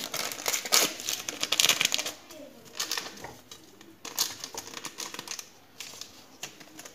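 Small paper sachet of vanillin crinkling and rustling in the hands as it is opened and handled, in bursts of crackle, busiest in the first two seconds.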